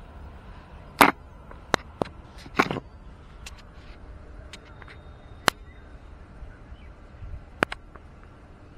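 Camera handling noise: a series of sharp clicks and knocks with brief rubbing, the loudest knock about a second in, as the camera is moved against denim clothing.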